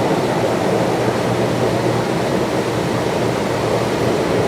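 Gym massage machine running at maximum pressure: a steady rushing noise with a low hum underneath.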